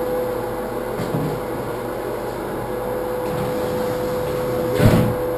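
A steady mechanical hum with one constant mid-pitched tone. Near the end comes a single dull knock as the sliding tub door panel is lifted and shifted out of its track.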